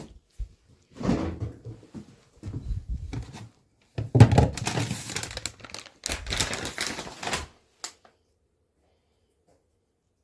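Rustling and knocking of things being handled, in several irregular bursts.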